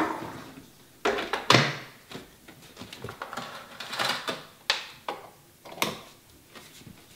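Hard plastic clicks and knocks from a food processor being assembled, with the lid and feed-tube pusher set in place and locked on. There are about half a dozen separate sharp knocks, and the motor is not yet running.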